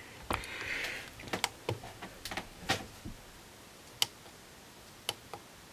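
Scattered small clicks and taps, about eight in all and irregularly spaced, with a brief soft hiss near the start. They come from handling the wire and capacitor being fitted to the hand-wired transistor circuit; the sharpest click falls about four seconds in.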